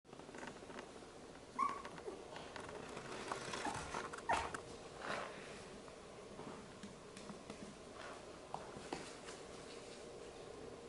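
Labradoodle puppies giving a few short, high whimpers, the loudest about one and a half seconds in and again just after four seconds, with soft small clicks and rustles between them.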